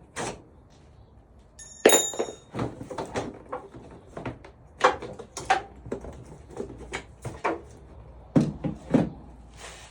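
Clicks and knocks of a Saturn's headlight assembly being released and lifted out by hand, including a sharp click with a short ring about two seconds in and a few heavier thunks near the end.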